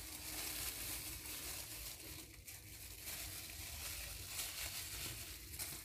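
Faint crinkling and rustling of thin plastic gloves and plastic wrap as gloved hands crumble soft cake, over a steady low hiss.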